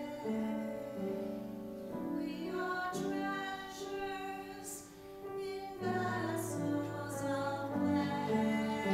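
Woman singing a solo hymn with instrumental accompaniment, holding long notes; the sung 's' sounds come through as brief hisses.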